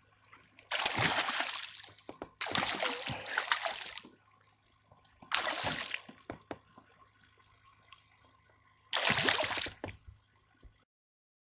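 A hooked northern pike thrashing at the surface beside a kayak, throwing up four bursts of splashing about a second long each, the last near the end.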